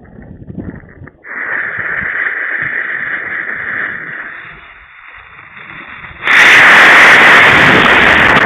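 Model rocket motor firing, heard through the rocket's own onboard camera microphone. A hiss starts about a second in and fades, then a sudden, much louder distorted rush begins about six seconds in as the rocket moves off the pad.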